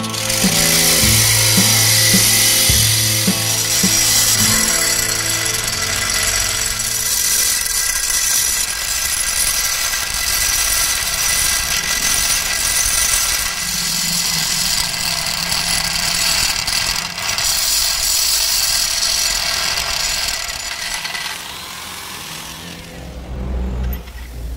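A power tool running steadily on metal, with background music in the first few seconds; the tool sound fades out near the end.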